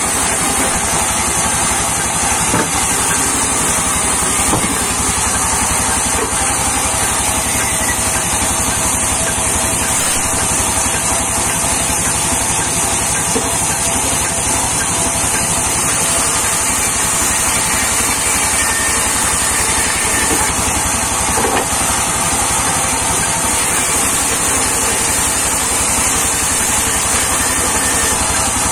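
Sawmill band saw running steadily while a log is fed lengthwise through the blade: a constant machine drone with a high hiss over it and a few light knocks.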